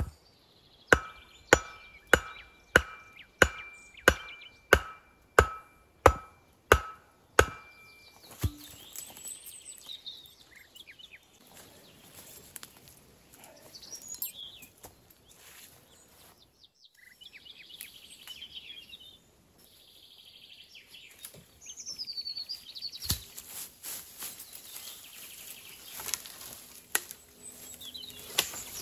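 A metal tool striking wood in eleven even blows, about one and a half a second, each with a short metallic ring, as in chopping or driving a stake during shelter building. After that, lighter knocks and rustling, and birds calling.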